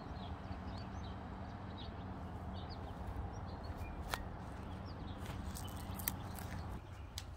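Faint bird chirps and a few sharp clicks over a steady low hum, which stops near the end.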